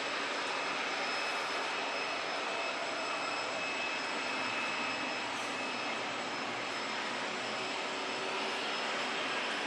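Airbus A380's four Engine Alliance GP7200 turbofans running at low thrust as it taxis: a steady rushing jet noise with a thin, even high-pitched whine over it.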